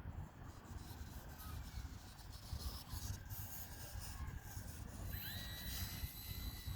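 Wind buffeting the microphone with a low rumble and some rustling. About five seconds in, the small electric motor of a HobbyZone Sport Cub S2 RC airplane comes in with a whine that rises quickly and then holds steady.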